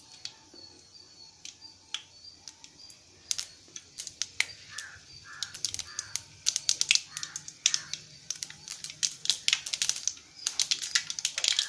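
Mustard seeds crackling and popping in hot oil in a steel kadai as they begin to splutter for a tempering: scattered pops at first, coming quicker and denser toward the end.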